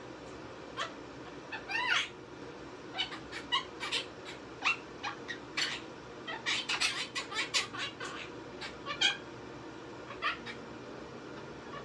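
Quaker parrot (monk parakeet) chirping and squawking in many short, high calls scattered throughout, some sweeping quickly up or down in pitch, with a quick run of chirps in the middle.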